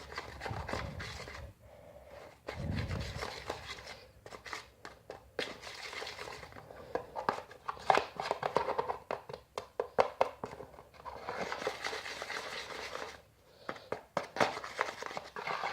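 Homemade slime of PVA glue, soap, shampoo and baby powder being stirred in a container just after slime activator is added, as it thickens: irregular sticky, wet clicks and crackles with short pauses.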